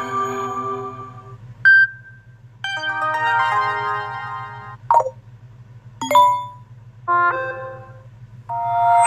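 A run of short Samsung Galaxy S21 notification sounds played one after another: about six brief electronic chimes, single dings and little melodies, each a second or two long or less, over a low steady hum.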